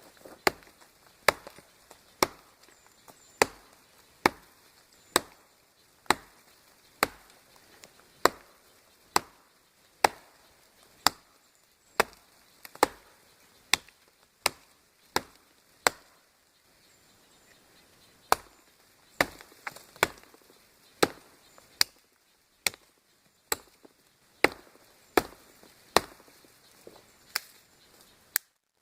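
Tomahawk chopping into a tree trunk: sharp, single wood-biting strikes in a steady rhythm of about one a second, with a short pause about two-thirds of the way through.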